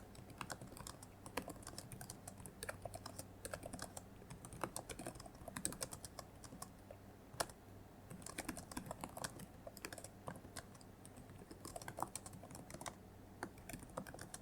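Typing on a computer keyboard: quick, irregular runs of soft key clicks with short pauses between them.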